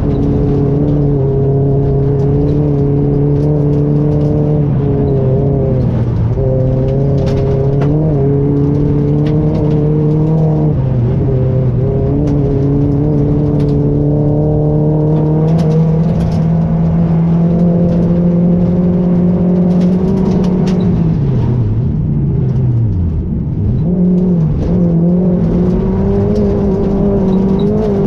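Rally car engine heard from inside the cockpit, held at steady high revs under load over a haze of tyre and road noise. A little over twenty seconds in, the revs fall steeply and then climb again.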